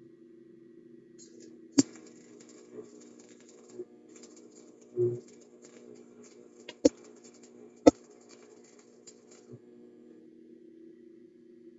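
Stick (arc) welding: the electrode arc crackles and spits for about eight seconds, starting just over a second in, with sharp pops, the loudest about two, seven and eight seconds in, and a dull knock about five seconds in, over a steady low hum.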